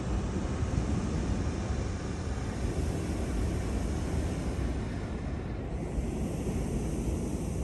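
Wind buffeting the microphone outdoors: a steady, low rushing noise without any clear other sound.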